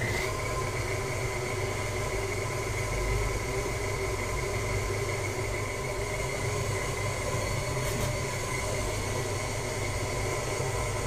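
Electric stand mixer running steadily with a dough hook, kneading bread dough: an even motor whine over a low hum. Faint clicks come at the start and again about eight seconds in.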